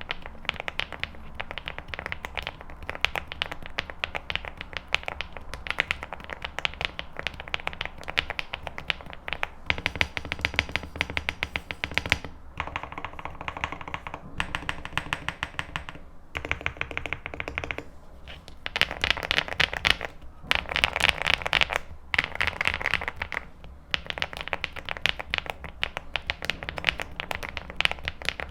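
Typing on a Leobog Hi75 aluminium mechanical keyboard with hand-lubed HMX Yogurt switches, TUT PBT keycaps and foam and tape mods: a rapid stream of keystrokes in several runs broken by brief pauses. The densest, loudest typing comes about two-thirds of the way through.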